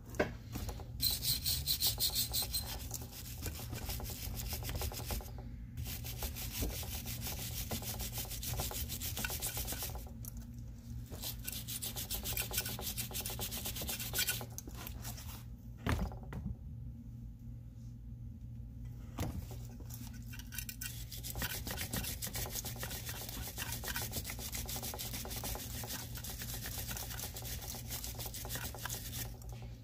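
Rapid scrubbing strokes on the old GE bench grinder's housing as its outside is cleaned. The scrubbing stops briefly twice and pauses for several seconds a little past halfway, over a steady low hum.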